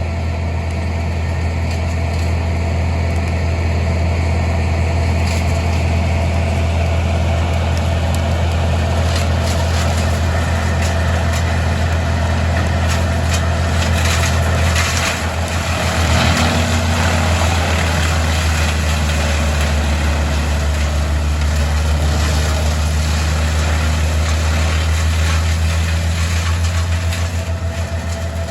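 An engine running steadily at idle, a low, even hum, with a brief dip and change in its sound about halfway through.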